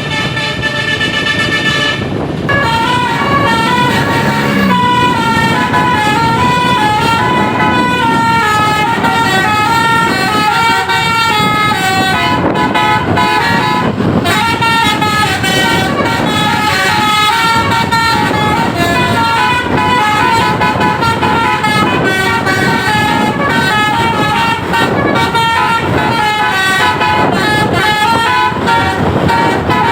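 A bus's Basuri multi-tone musical horn (telolet) playing a long tune of stepped notes, with a brief break about two seconds in, over a low rumble.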